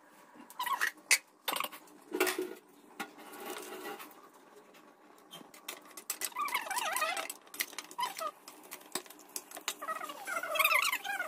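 Steel bowls and a ladle clinking and knocking against each other as marinated fish is handled. A cat meows in wavering calls midway and again near the end.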